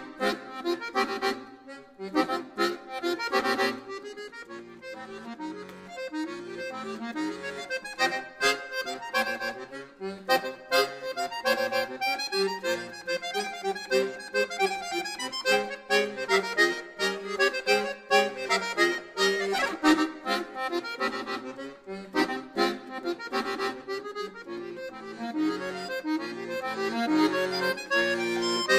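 Chromatic button accordion playing solo: a lively passage of short, sharply attacked notes and chords over changing bass notes.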